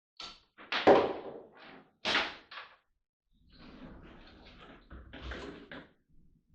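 Knocks and thuds of things being handled and put down, the loudest about a second in and another sharp knock at about two seconds, followed by a few seconds of lighter clattering and scraping.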